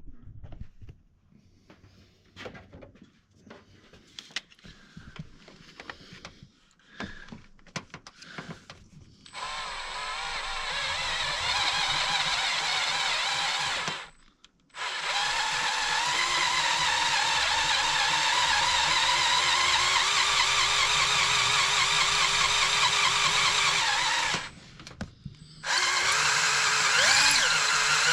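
Power drill with a 3/8 bit drilling out the stripped timing chain guide bolt hole in a 2.4 L engine, running in three long stretches with two short stops, its pitch wavering under load. Before it, several seconds of light clicks and handling noises.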